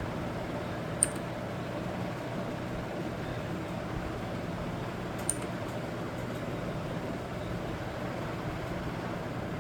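Two sharp single clicks about four seconds apart, from keys pressed on a Redragon K551 mechanical keyboard, over a steady background hum.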